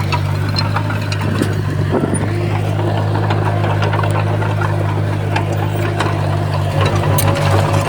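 Heavy diesel engine of earthmoving machinery running steadily, with many scattered sharp metallic clicks and clanks. The engine note pulses briefly near the end.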